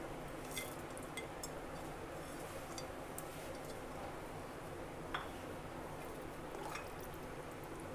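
A handful of light, scattered clinks and taps against a stainless-steel pot as a plate is emptied into it and the milk is stirred with a wooden spatula, over a steady low hiss.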